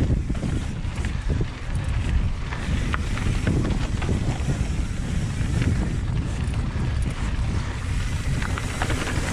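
Wind noise on the microphone as a titanium singlespeed mountain bike descends a loose dirt trail. Heavy low rumble is broken by scattered small clicks and rattles from the tyres and bike over the rough ground.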